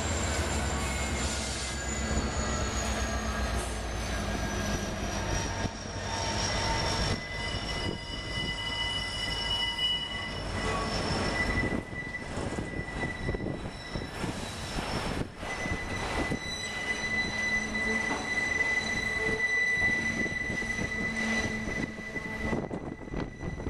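Freight train rolling past on a curve. Steel wheels squeal in several long, steady high-pitched tones as the autorack cars go by, over the rumble and clatter of the cars. A deep locomotive rumble is heard in the first couple of seconds as the trailing locomotive passes.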